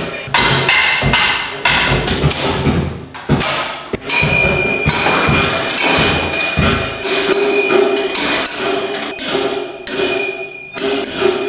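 Experimental percussive music played on handmade sculpture-instruments: irregular hits on metal bars and wood. About four seconds in, a held ringing tone joins, coming and going under the continuing strikes.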